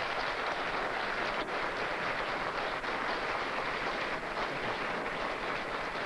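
Audience applauding: a steady, dense patter of many hands clapping.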